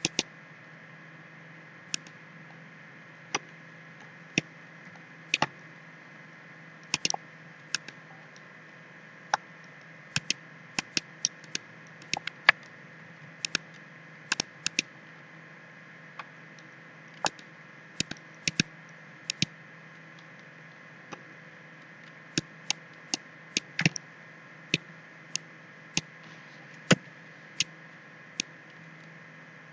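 Computer mouse clicking at an irregular pace, single clicks and quick pairs, over a steady hiss and faint hum.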